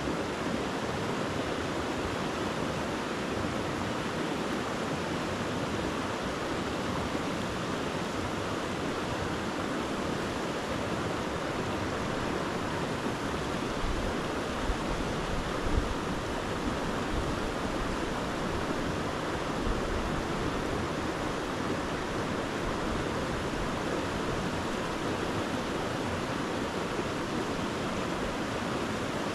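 Creek water rushing steadily over a shallow rocky riffle, an even rushing noise, with a few brief low bumps about halfway through.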